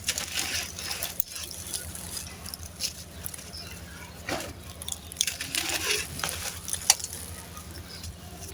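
Chunks of dry, gritty sand-cement crumbling and being crushed: irregular crunches and crackles, with a steady low hum underneath.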